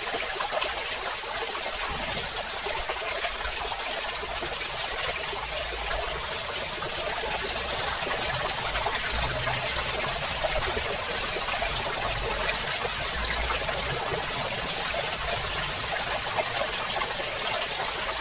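Steady run of water pouring and splashing from the outlet of a mini submersible water pump, with a faint low hum underneath.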